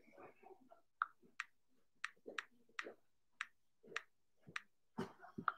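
Fingertips tapping keys on an iPad Pro's on-screen keyboard while typing a password: about ten light clicks, roughly two a second.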